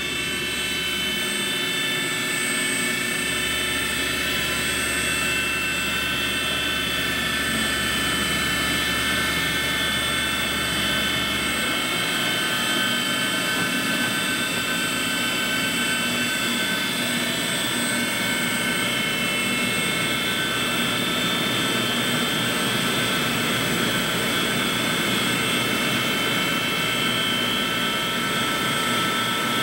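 1996 Walter Helitronic CNC tool and cutter grinder running its warm-up program, spindle at 2,000 RPM while the axes move: a steady machine whine made of several high tones. A low hum underneath drops out briefly near the start and stops about twelve seconds in.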